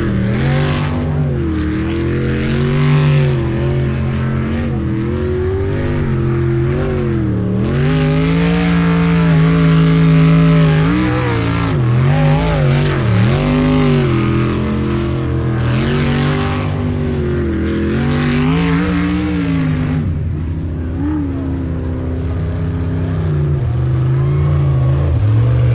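Jet sprint boat's engine running hard through a course, its pitch rising and falling over and over as the throttle is worked up and down.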